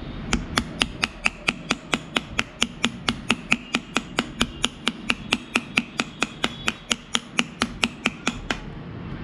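Pliers tapping repeatedly on a stuck screw-on filter ring at the front of a camera lens, knocked to loosen it. The taps are sharp and even, about four a second, and stop shortly before the end.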